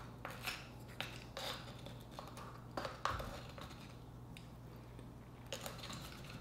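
Soft scattered clicks and wet scraping of a wooden spoon and fingers scooping uni out of opened sea urchin shells, with one firmer knock about three seconds in, over a faint steady low hum.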